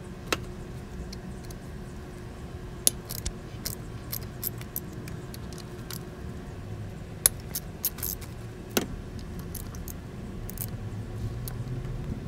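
Irregular sharp metal clicks and clinks of hand tools on the valve-cover bolts, over a faint steady low hum.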